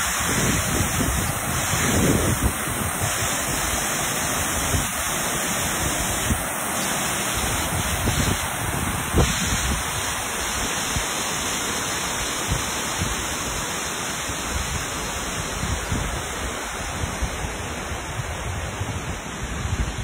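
Water cascading down the stepped stone face of a dam spillway: a steady rushing, slowly growing fainter toward the end. Wind buffets the microphone in the first few seconds.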